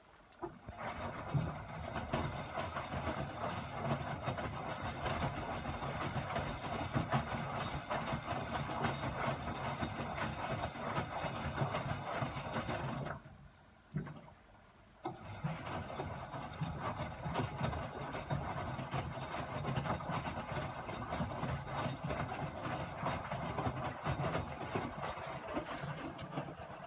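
Miele WS 5406 washing machine drum tumbling the laundry during the wash, a steady churning noise. About halfway through it stops for about two seconds, then starts turning again.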